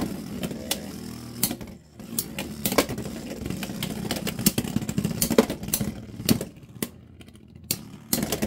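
Two Beyblade X spinning tops, Dran Buster and Rhino Horn, whirring in a clear plastic stadium, with repeated sharp clacks as they hit each other and the stadium wall. The whirring drops briefly about two seconds in and again near the end.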